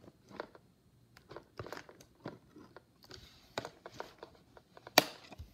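Scissors snipping and crunching through plastic toy packaging: a run of irregular short clicks and crunches, the sharpest about five seconds in.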